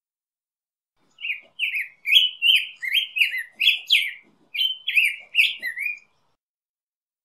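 Black-headed grosbeak singing: one phrase of quick notes sliding up and down, starting about a second in and lasting about five seconds, with a short break midway.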